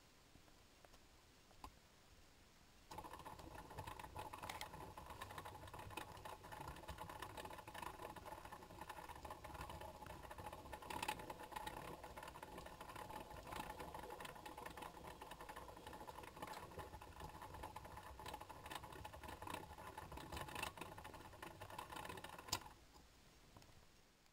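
Faint steady mechanical whir from a small motor, with a few sharp clicks. It starts suddenly about three seconds in and dies away a couple of seconds before the end.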